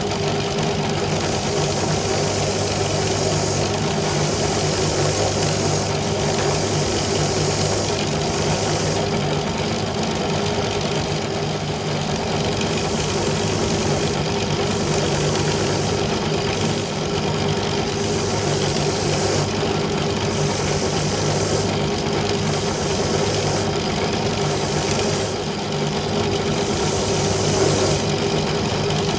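Steady hum of an electric motor running continuously, with an even pitch throughout.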